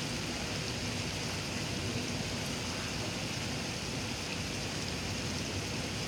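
Steady rushing, splashing noise of pond aerators churning the water surface.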